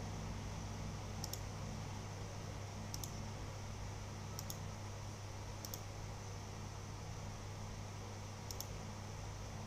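Five sharp double clicks, each a quick press-and-release, spaced one to three seconds apart, over a steady low hum.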